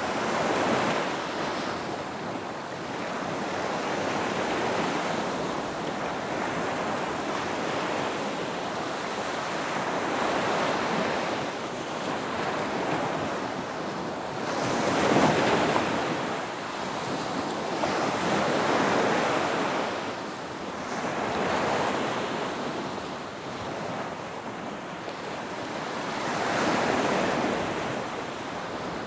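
Ocean waves breaking on a beach and washing up the shore, the surf swelling and ebbing every few seconds with the strongest break about halfway through.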